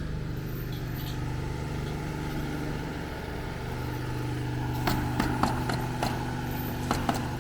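An engine idling with a steady hum, and from about five seconds in a run of sharp knocks, roughly seven in three seconds, from roofers nailing on the roof.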